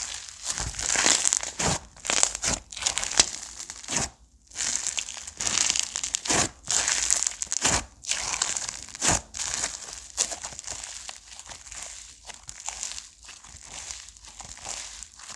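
Slime being squeezed, stretched and pressed by hand, giving a dense, irregular crackling and popping with short sharp snaps.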